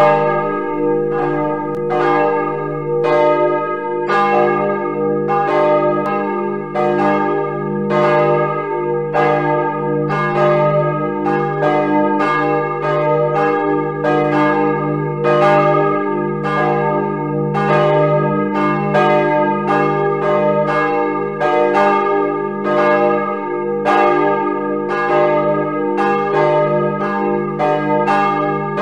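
Full peal of church bells played from sampled bells in a bell-ringing simulator, several bells swinging together. Their strokes overlap at about two a second over a steady low hum.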